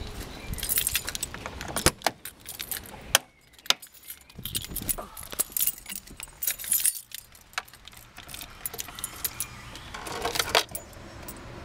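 Car keys jangling, mixed with irregular clicks and knocks from a Citroen BX's driver door and cabin as someone opens the door and gets into the driver's seat; a louder burst of clatter comes near the end.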